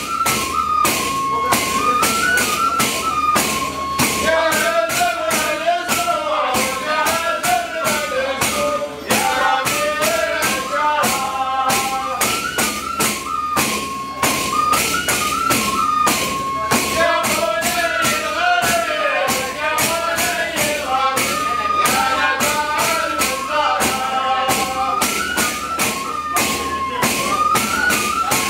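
Hand-beaten frame drums keeping a steady, dense rhythm under a men's chant in the traditional Hadrami (Tarim) style, the melody moving in small steps and holding notes.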